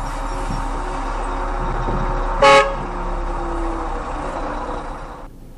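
Steady road and engine noise of a car driving, with one short car-horn toot about two and a half seconds in. The noise drops to a quieter level near the end.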